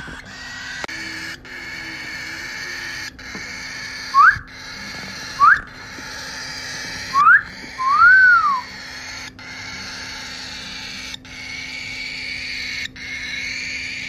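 Cockatiel chicks begging, a steady hissing chorus, with four loud short whistles near the middle: three quick upward notes, then one that rises and falls.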